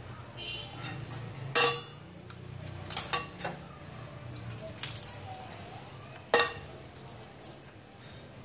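Sharp clinks of kitchenware as boiled chicken is pulled apart by hand over a plate: four short knocks, the loudest about one and a half seconds in and others near three, five and six seconds in, over a low steady hum.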